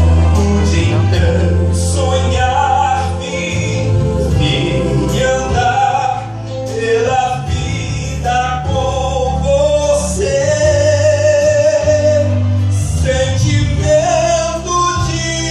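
A man singing a slow gospel song over instrumental accompaniment with a steady bass, amplified through a hall's loudspeakers.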